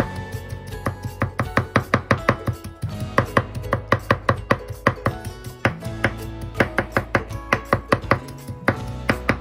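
Chef's knife mincing onion on a wooden cutting board: quick, even knocks of the blade on the board, about five a second.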